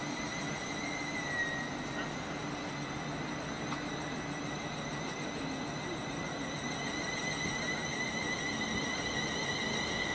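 Electric multiple unit running along the platform: a steady rumble with a faint high whine, growing gradually louder.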